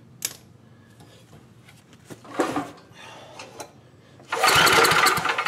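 Small clicks and handling sounds, then about four seconds in a single pull on the recoil starter of a Tecumseh 10 hp generator engine: a loud, rough burst of about a second as the rope runs out and the engine cranks over.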